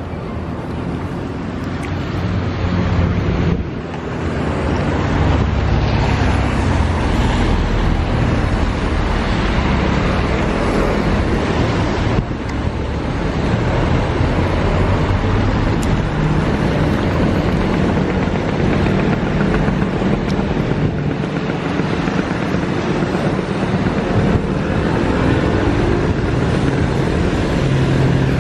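Steady city traffic noise from cars driving on a wet street.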